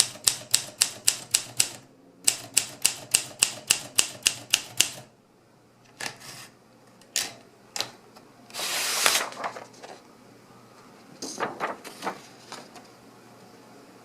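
Olympia SM3 manual typewriter being typed on: two quick, even runs of keystrokes at about five a second with a short pause between, stopping about five seconds in. Then come a few scattered clicks, a longer noisy burst of about half a second near the middle, and a brief cluster of clicks a few seconds later.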